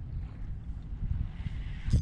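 Wind buffeting the microphone and water slapping against a fishing kayak, heard as an uneven low rumble, with one sharp knock near the end.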